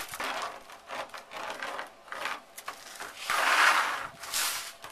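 Scraping and rubbing of hand tools (pencil, tape measure, metal tube straightedge) being moved and drawn across a fiberglass sheet: a run of short scratchy rubs, the longest and loudest a little past halfway, with a shorter one just after.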